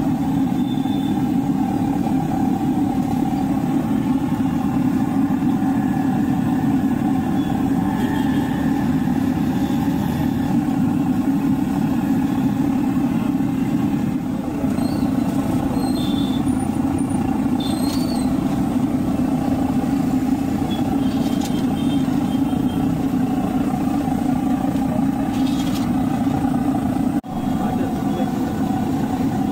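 A large kadai of samosas deep-frying in hot oil: a steady, loud roar and bubbling, broken once briefly near the end.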